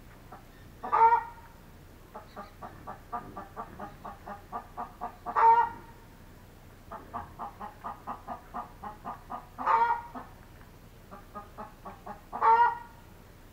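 Free-range chicken cackling: runs of quick clucks, each building to a loud, drawn-out squawk, four times over.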